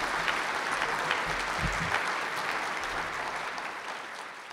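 Audience applauding: a dense, steady clapping that slowly dies away toward the end.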